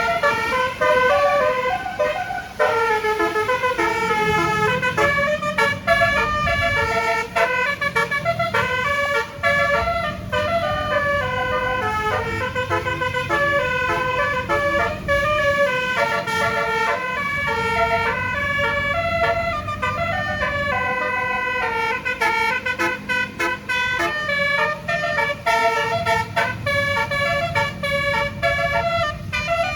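A tour bus's telolet basuri horn, a set of electric air-horn trumpets, playing a fast melody note after note without a break. A low rumble runs beneath it from about four seconds in.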